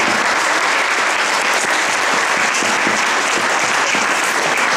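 Audience applauding steadily, a dense even clapping from a large hall full of people.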